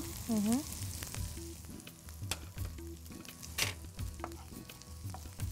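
Chopped ginger, garlic and green chillies sizzling in butter in a frying pan as turmeric is stirred in, with a few sharp clicks of the stirring spoon against the pan.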